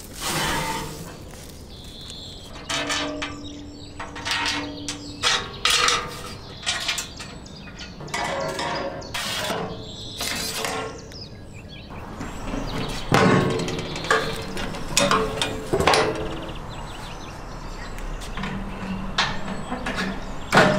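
Metal clanks and knocks from handling a steel offset barrel smoker and its cooking grates, coming in irregular clusters with short pauses between them.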